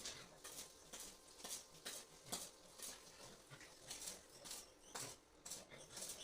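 Faint, irregular clicks and scratches, a few each second, with an occasional soft knock.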